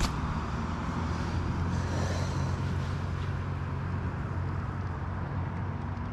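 A steady low motor hum, with a sharp click right at the start.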